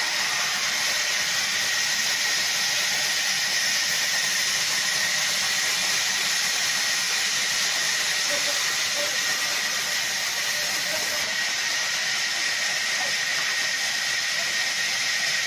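Large sawmill band saw running with a steady high hiss and a constant whine as a log is pushed toward the blade.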